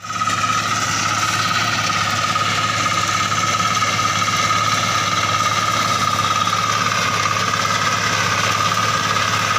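Engine of a walk-behind soybean reaper running steadily while its cutter bar cuts standing soybeans: a low hum with a steady high whine over it.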